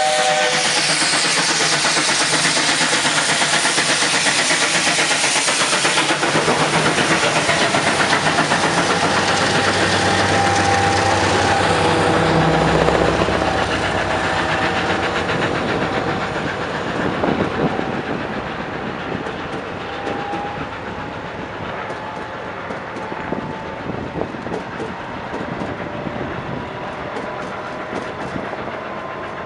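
A Class 19D steam locomotive passes close by with a loud rush of exhaust and steam. After it go the coaches, rolling past more quietly with a clickety-clack of wheels over the rail joints.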